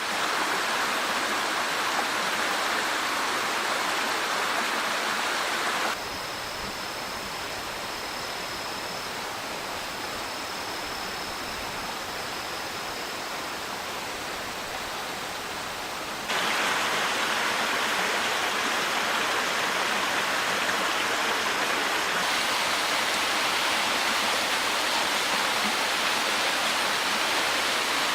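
Rushing water of a stream swollen with typhoon rainwater, a steady full rush. It drops abruptly to a softer rush about six seconds in, with a faint thin high tone over it, then jumps back to the louder rush about sixteen seconds in.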